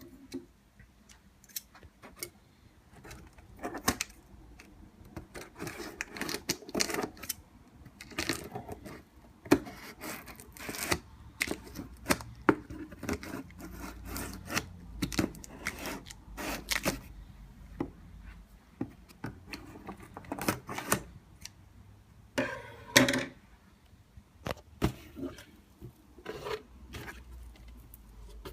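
A cardboard shipping box being opened by hand: irregular scraping, rubbing and sharp knocks of cardboard and packing material.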